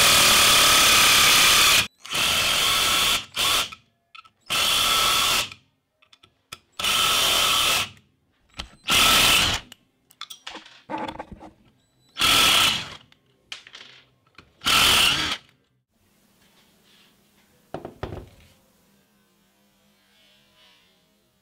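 Black & Decker 12V cordless impact driver driving screws into a wooden board in about seven short bursts, the tool running on its rebuilt lithium battery pack. The bursts stop about three quarters of the way through, leaving only a faint hum.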